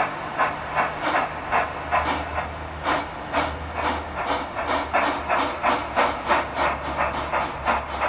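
Steam sound cards in two radio-controlled G scale USRA Mallet model locomotives playing steady chuffing exhaust beats, about three a second, over a continuous steam hiss.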